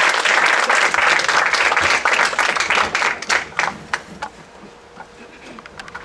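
Audience applauding, the clapping dense at first and dying away to a few scattered claps about three to four seconds in.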